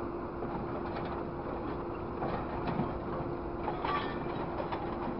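Scrap grapple machine's engine and hydraulics running with a steady hum while the grapple bites into a pile of scrap metal. Scattered metallic clanks and scrapes from the scrap, the loudest just before four seconds in.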